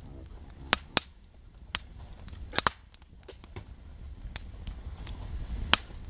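Wood campfire crackling: about ten sharp, irregular pops from the burning logs over a low rumble, the loudest pops coming a little under a second in and again near the end.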